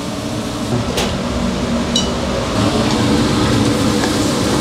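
Rice cakes in sauce sizzling and bubbling in a frying pan over a gas flame, a steady hiss that grows fuller after a couple of seconds. A wooden spatula stirs and scrapes the pan near the end.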